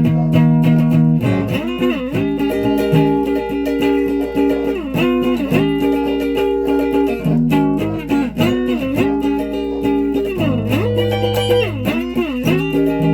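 A guitar played with a pick: held notes, some sustained a second or more, linked by sliding bends up and down in pitch.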